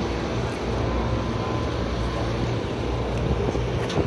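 Steady low mechanical hum under a haze of outdoor background noise.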